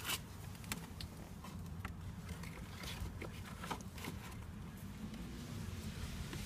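A new cabin air filter being slid by hand into its plastic housing behind the glovebox of a 2015 Toyota RAV4: a sharp plastic click right at the start, then scattered small clicks and rubs of the filter frame against the housing, over a steady low hum.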